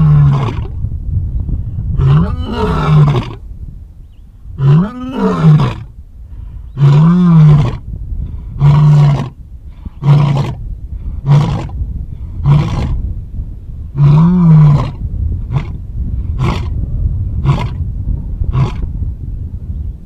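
Male lion's roaring bout: a few long roars that rise and fall in pitch, followed by a run of shorter, quicker grunting roars that trail off near the end.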